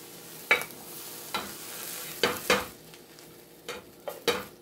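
An omelet still sizzling in a skillet, fading out about three seconds in, with sharp clinks and knocks of the metal pan and a plate as the omelet is turned out onto the plate. There are about seven knocks, the loudest about half a second in and two at around two and a half seconds.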